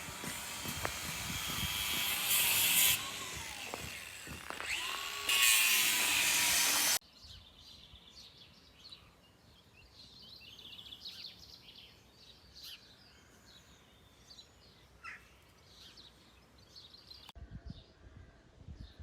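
A loud rushing noise builds in two surges, then cuts off abruptly about seven seconds in. After that, many short, high birdsong chirps sound over a quiet rural background.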